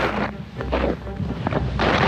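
Skis scraping over hard, icy snow in turns, with wind rushing over the microphone. The scraping comes in surges with short lulls and runs steadily near the end.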